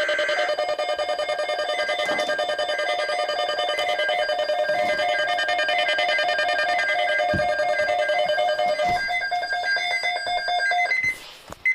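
Electronic emergency alert attention tone: a loud, rapidly pulsing alarm made of several tones sounding together. It stops about eleven seconds in.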